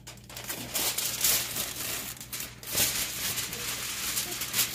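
Heavy-duty aluminium foil crinkling as a sheet is drawn off the roll and handled over a glass baking dish. It comes as a rustle with a few louder crackling bursts.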